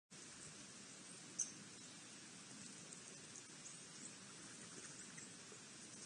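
Birds pecking at corn and seed on a wooden platform feeder: scattered faint ticks over a steady outdoor hiss, with one sharper click about a second and a half in.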